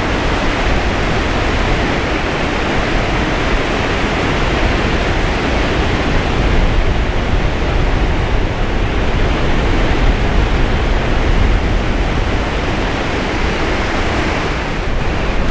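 Wind and surf on a beach: a loud, steady rush, with wind rumbling on the microphone.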